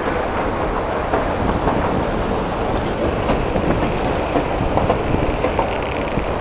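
Steady rumble of a busy London Underground station, with scattered light clicks and taps from about a second in.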